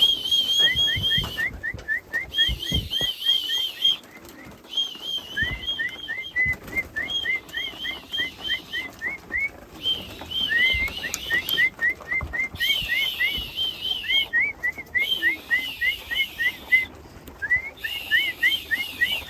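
Feed-call whistling at a pigeon loft: a steady string of short rising whistles, about five a second, with runs of quicker warbled whistles a little higher in pitch broken by short pauses. Racing pigeons' wings flap as they feed, heard as scattered low thumps.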